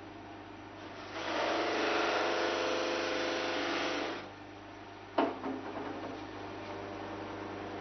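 Bench buffing machine running with a steady hum; from about a second in until about four seconds, a workpiece pressed against the spinning buffing mop gives a much louder rubbing whir. A single sharp knock follows about five seconds in, with a few lighter knocks after it.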